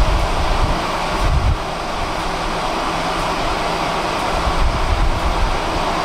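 Tram running on rails: a steady rumble with a low hum and a few heavier low thuds.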